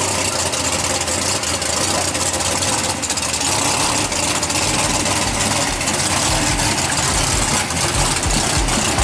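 Gas-engined stock pickup truck idling, a steady engine sound with a low throb that grows stronger about halfway through.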